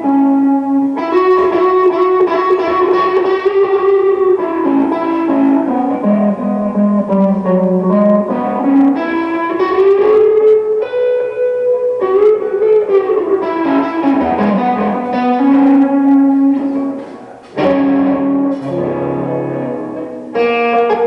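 Solo guitar improvising a slow blues, with held single notes that bend and slide up and down in pitch. The playing dips briefly near the end, then goes on.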